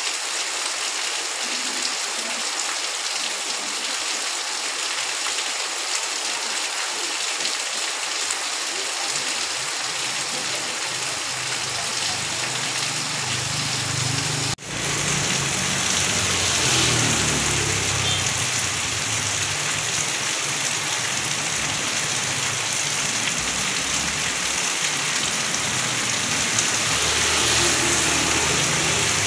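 Heavy rain falling on a paved street, a loud steady hiss. About halfway there is a brief break. After it the rain is joined by the changing low rumble of traffic on the wet road, with a motor scooter going by near the end.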